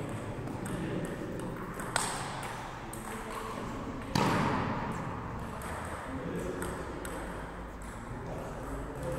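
Table tennis ball clicking off bats and the table in a doubles rally, a string of short sharp ticks in a large echoing gym hall. About four seconds in there is one louder sudden sound with a short ring of echo after it.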